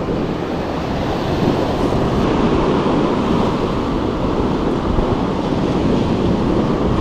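Ocean surf washing in steadily, with wind buffeting the microphone.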